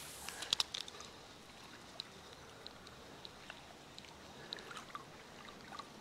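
Faint trickle of a mountain stream, with a few sharp clicks in the first second and scattered soft ticks after.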